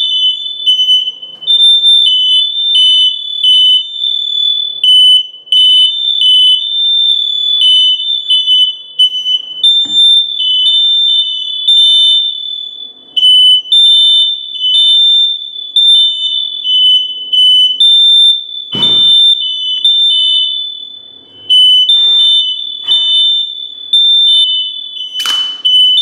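Two residential smoke alarms sounding at once, set off by canned test smoke: loud, high-pitched piezo beeps at two slightly different pitches overlapping out of step, with a few brief knocks in between.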